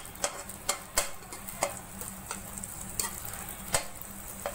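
Beaten egg sizzling in hot oil in a non-stick pan while a metal spatula breaks it up, its edge clicking and scraping against the pan at irregular moments.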